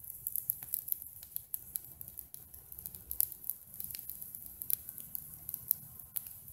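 Wood campfire crackling: irregular sharp pops and snaps from burning sticks over a steady hiss, a few pops standing out louder.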